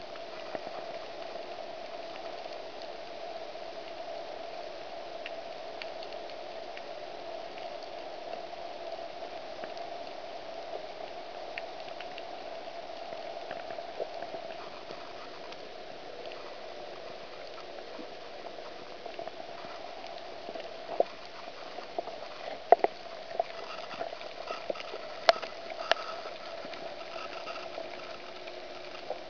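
Underwater reef ambience heard through a submerged camera: a steady crackling hiss, like boiling water. About two-thirds of the way through comes a run of sharp clicks, the loudest sounds here.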